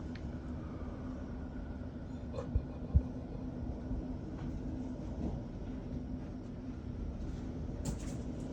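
Strong wind gusts buffeting a house, heard from inside as a steady low rumble, with two sharp thumps against the house close together about two and a half to three seconds in.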